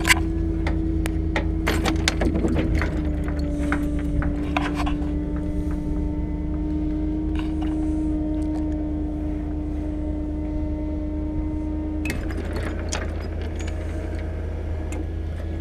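Bucket truck's hydraulic boom raising the bucket: a steady low engine drone under a constant hum that drops slightly in pitch about three seconds in and stops about twelve seconds in. Light metallic clicks and clinks from the bucket and its controls come mostly in the first few seconds and again near the end.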